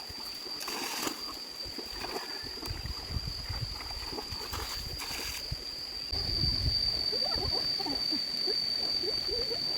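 Water splashing and sloshing with irregular knocks, under a steady high-pitched whine.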